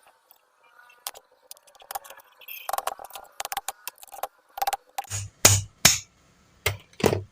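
Metal tools clinking and knocking on the parts of a small electric water-pump motor being taken apart: scattered light clicks at first, then a run of louder knocks in the second half.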